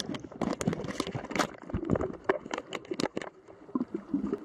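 Water and bubbles moving around a camera held underwater by a swimmer: a dense, irregular run of clicks, knocks and crackles over a low rumble.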